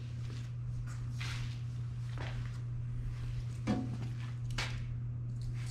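Faint knocks and scuffs as the old plasma torch lead is handled and moved aside, with footsteps, over a steady low hum.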